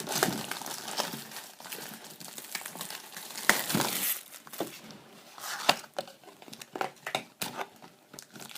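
Crinkling plastic packaging of a trading-card booster box and its foil booster packs being handled, in irregular bursts with scattered sharp clicks and taps.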